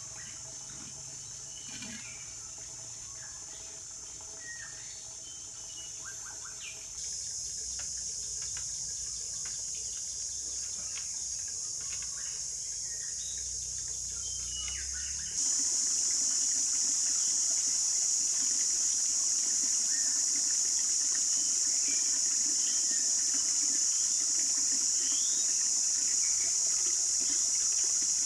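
Forest ambience: a steady high-pitched hiss with scattered bird chirps. The hiss steps louder twice, about a quarter of the way in and again just past halfway.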